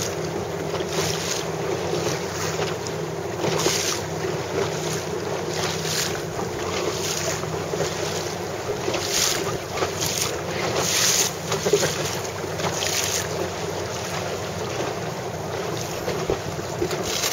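Wind rushing over the microphone on open water, with the wash of the sea beneath it and short louder gusts every second or so.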